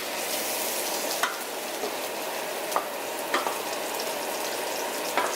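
Philly cheesesteak meat sizzling steadily as it fries in a pan, with a few sharp clicks of a utensil knocking against the pan as it is stirred.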